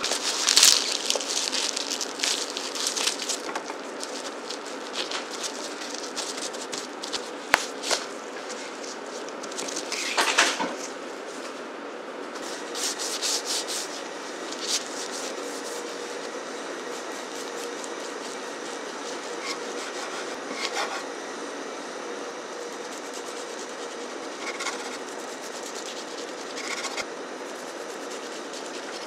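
A bamboo gimbap rolling mat rustling and clicking as a roll of gimbap is pressed and rolled in it, in several bursts. Later come softer single knocks as a kitchen knife cuts the roll into slices on a wooden board.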